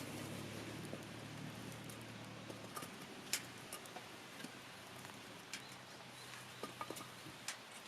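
Wood fire crackling: irregular sharp pops and snaps over a soft hiss, the loudest pop about three seconds in. A faint low drone fades away during the first half.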